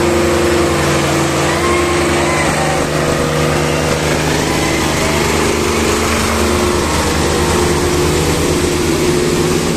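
Diesel tractor engines of a Mahindra Arjun 555 and a Solis 55 running hard in a tractor pulling contest: a loud, steady drone with rapid firing pulses.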